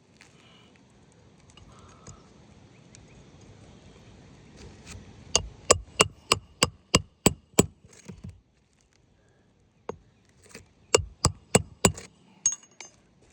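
Hammer striking on an asphalt shingle roof, sharp knocks about three a second: a run of about eight blows, a pause, then four more.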